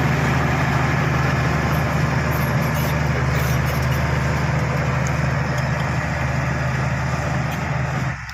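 Bulldozer's diesel engine running steadily at a constant pitch, with a hiss spread across the whole range above it. The sound drops off abruptly just before the end.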